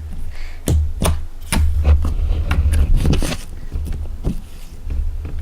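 Clear slime being handled and squeezed, giving irregular sharp clicking pops over a low rumble from the handling.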